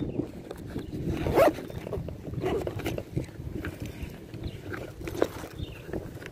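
Irregular rubbing, scraping and knocking of an arm and clothing against a body-worn camera's microphone as the angler handles the rod.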